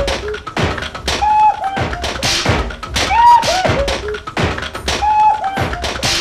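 Rhythm track built from Schuhplattler-style slaps on leather shorts, a looped pattern of thunks and taps that repeats about every two seconds, with a short gliding vocal-like phrase over each repeat.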